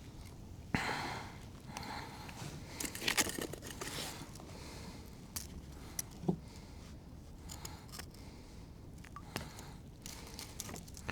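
Scattered handling noises: scrapes, clicks and rustles of hands working at fishing line and tackle to free a pike that has twisted itself up. The sharpest clicks come about a second in and about three seconds in, with a brief low squeak near the middle.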